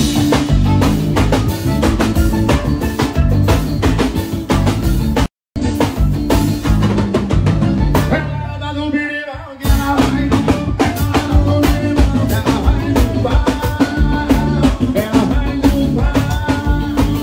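Forró band playing live with a drum kit and a singer on the microphone, during a soundcheck. The sound cuts out for an instant about five seconds in. Around eight seconds the band thins out under the voice, then comes back in full near ten seconds.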